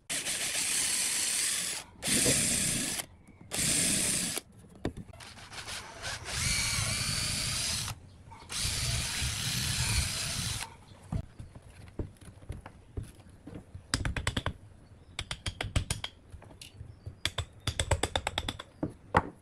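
Cordless drill running in several bursts of one to a few seconds each, boring into a tree branch. After that comes a run of sharp clicks and taps in quick clusters as tools work on the wood.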